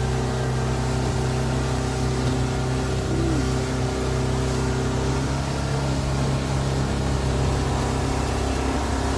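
A boat's engine running steadily at speed, with wind and rushing wake water on the microphone.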